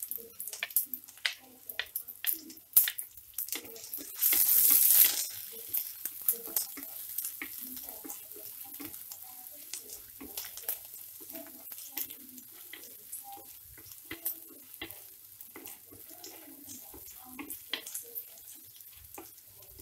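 Chopped ginger, garlic and green chillies sizzling in coconut oil in a clay pot, stirred with a wooden spatula that clicks and scrapes against the pot. A loud hiss of about a second comes about four seconds in.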